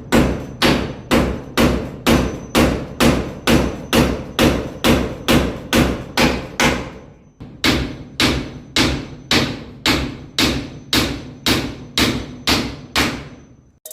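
A hammer driving a nail with steady, even blows, about two a second, with one short pause a little past halfway.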